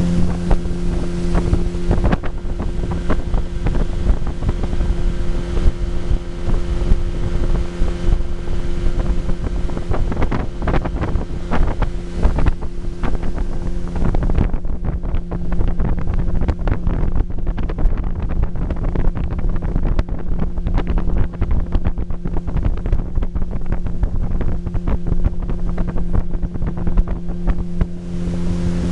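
Boat's outboard motor running at a steady pitch, with wind buffeting the microphone.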